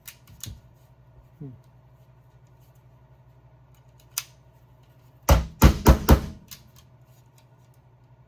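Jammed ratcheting wire crimper being tapped to free its locked-up ratchet: a quick run of about five sharp knocks a little past midway, with a few lighter clicks of the tool before and after.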